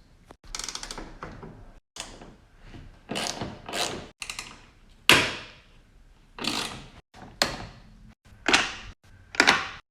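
A string of about eight separate sharp clacks and knocks, each dying away quickly, the loudest a little after five seconds in: plastic push-pin clips and screws being pried and worked out of a Mazda3's bumper cover.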